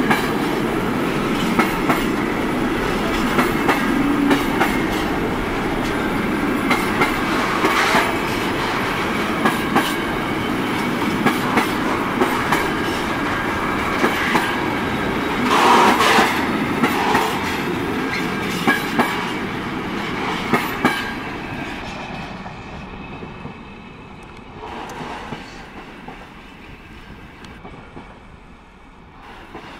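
Container freight train's flat wagons rolling past close by, the wheels clacking over rail joints in a regular rhythm over a steady rumble. About two-thirds of the way through, the last wagons go by and the sound fades as the train moves away.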